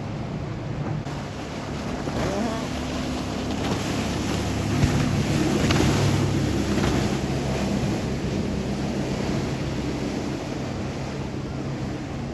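Motorboat engine running as a boat passes through an inlet, a steady low drone that grows to its loudest about halfway and then eases off, with the hiss of water wash and wind on the microphone.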